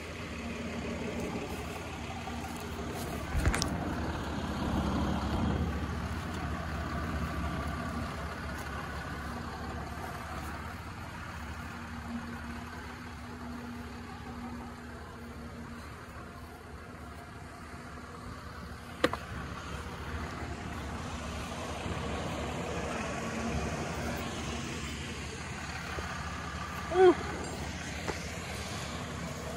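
Diesel truck engine idling steadily. A thump comes a few seconds in, a sharp click later, and near the end a short rising squeak, the loudest sound.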